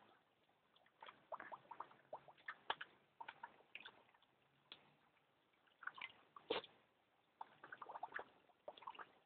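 Terrier splashing in a plastic water bowl with its muzzle and paw: irregular clusters of small splashes and drips, with two louder thumps, one about three seconds in and one past halfway.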